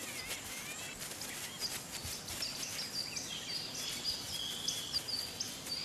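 Birds chirping and whistling in a wild bush chorus: many short, high notes that step up and down in pitch, a few lower sliding calls, and a steady insect hiss underneath.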